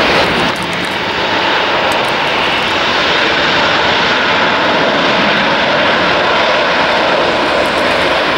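Emirates Airbus A380-800's four jet engines at high thrust on its takeoff roll: a loud, steady jet engine noise.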